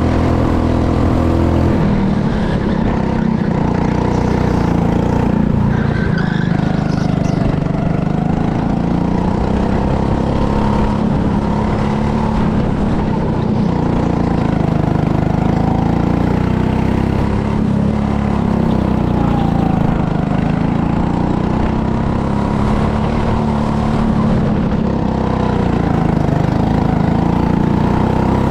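Go-kart engine running hard under the driver, its note rising and falling again and again as the kart speeds up on the straights and slows into the corners.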